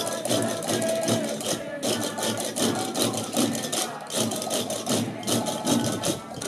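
Festive procession music: a fast, even train of sharp clacks, about six a second, with voices singing over it. The clacks break off briefly twice.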